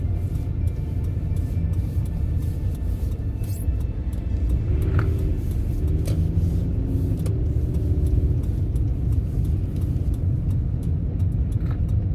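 Car engine and tyre noise heard from inside the cabin while driving: a steady low rumble.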